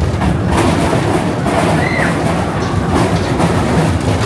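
Big Thunder Mountain Railroad mine-train roller coaster running along its track at speed: a steady loud rumble and clatter of the wheels on the rails. A brief high squeal comes about halfway through.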